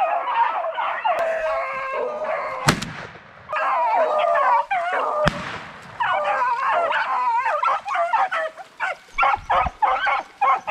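A pack of beagle hounds baying in overlapping, wavering voices while running a rabbit's track. Near the end the baying breaks into short, quick barks. Two sharp cracks cut through, nearly three seconds apart, the first the loudest sound in the stretch.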